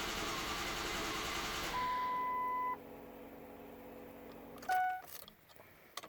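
Ford diesel engine cranking on the starter without catching, a steady mechanical noise that stops about two seconds in. A steady electronic beep about a second long follows, then a short, lower beep about two-thirds of the way through, then a few light clicks.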